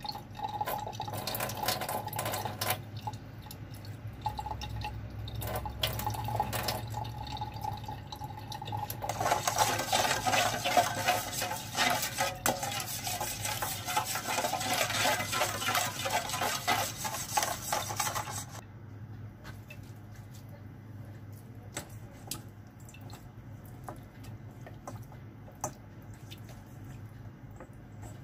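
Kitchen tap running into a sink for about ten seconds and then shut off, with light clinks of dishes before it and faint ticks after it.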